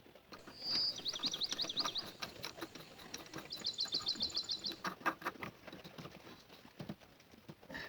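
A bird singing: a short whistled note, then a quick trill of rapidly repeated chirps, and a second trill a little later, over scattered light clicks and taps.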